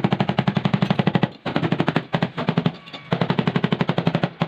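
Rapid, regular mechanical hammering or chattering, about a dozen strikes a second, in bursts broken by short pauses, consistent with a power tool used in repair work.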